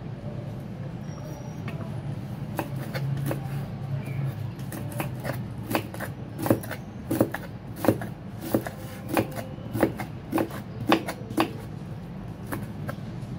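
Cleaver chopping strips of peeled mango on a thick round wooden chopping block: light knocks at first, then a regular run of loud chops about one and a half a second, easing off near the end. A low steady hum runs underneath.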